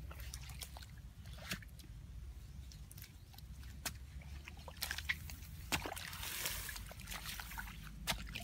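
Digging and scooping in wet mud and shallow water at a paddy ditch bank: scattered squelches, knocks and small splashes, with a longer splash about six seconds in, over a steady low rumble.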